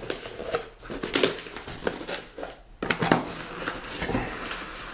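Cardboard shipping box being opened by hand: flaps folding back and rubbing, with irregular scraping, rustling and a few sharp knocks of the cardboard.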